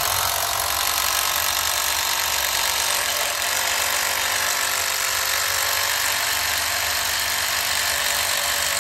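Makita cordless impact driver hammering steadily as it drives a screw into a wooden block.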